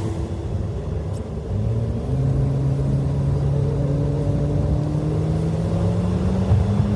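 Motor vehicle engine running under a low road rumble; about two seconds in its note steadies and then climbs slowly in pitch as the vehicle accelerates.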